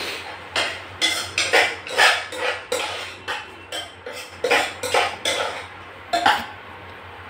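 Metal ladle scraping and knocking against a steel saucepan while stirring, about two strokes a second, stopping about six and a half seconds in.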